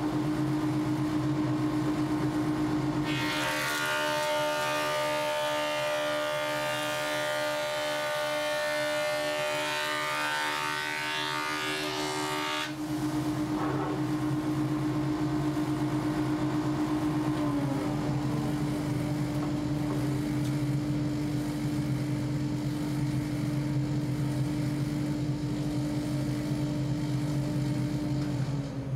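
Stationary jointer running with a steady motor and cutterhead hum. For about ten seconds, starting some three seconds in, a long board is fed across the knives, and the cutterhead cuts loudly as it planes the hump off the bowed board. After that the machine keeps running with no cut.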